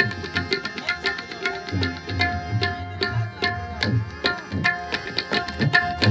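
Tabla and harmonium playing together: fast, dense tabla strokes, with sliding low notes from the bass drum, over sustained harmonium notes.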